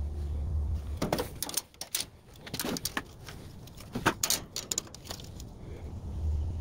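A run of short clicks and knocks as a steel tape measure is moved and set down against metal grill grates, loudest about four seconds in. A low wind rumble on the microphone fills the first second and returns near the end.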